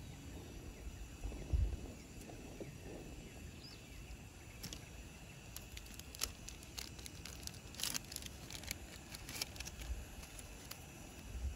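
Outdoor ambience: a steady low rumble with scattered sharp clicks and crackles, the busiest and loudest in the middle, over a faint steady high hum.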